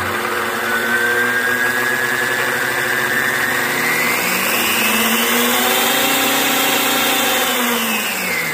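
Central Machinery 40981 12-inch band saw running with its blade off, its variable-speed motor and belt-driven wheel spinning. The whine climbs in pitch through the first half as the speed is turned up, holds high, then starts to fall near the end as the speed is turned down.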